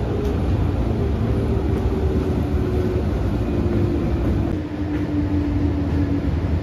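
Cabin sound of a JR 205 series electric commuter train on the move: steady low rumble of wheels on rail with a motor hum that slowly falls in pitch, as the train slows.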